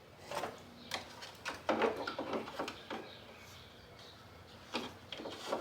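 Scattered light clicks, taps and knocks of hands handling small parts, several close together in the first half and two more near the end.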